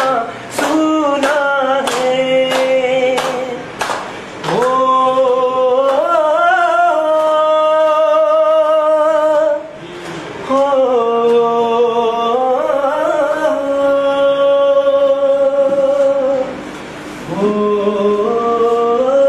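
A man singing unaccompanied in long, wavering held notes, with a group clapping along in time, about twice a second, for the first few seconds.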